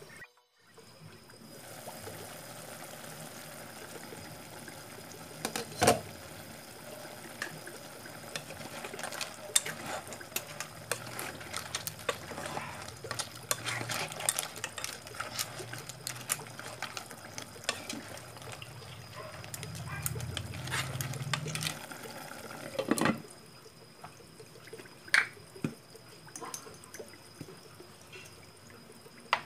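Soup of bottle gourd, clams and prawns bubbling in a pot, with many small ticks and a few louder metal clinks from the ladle and pot lid, one about six seconds in and one about two-thirds of the way through.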